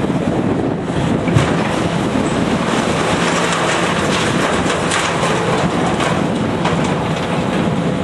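Heavy demolition machinery working on structural steel: a diesel engine running with repeated metal clanking and scraping, and a heavier knock about a second and a half in.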